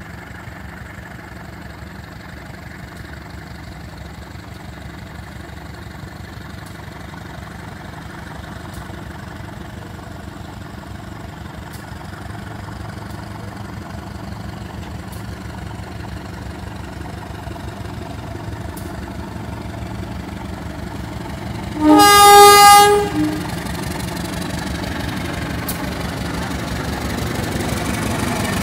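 A KAI CC206 diesel-electric locomotive approaching, its engine running and growing steadily louder as it nears. About 22 seconds in it sounds its horn once, a loud chord lasting just over a second.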